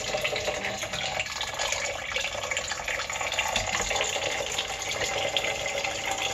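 A thin stream of filtered water from a sink faucet pouring steadily into a rice cooker's inner pot of rice and water, filling it for cooking.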